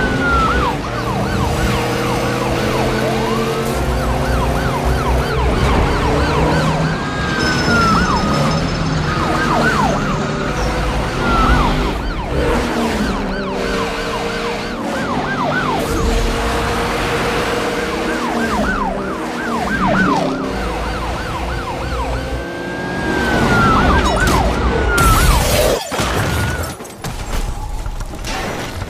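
Several police sirens wailing at once, their pitch sweeping up and down over and over, over background music with a steady beat.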